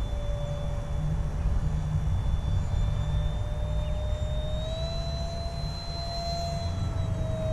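Electric ducted fan of an RC plane whining steadily in flight, its pitch stepping up slightly about five seconds in and easing back near the end, over a low wind rumble.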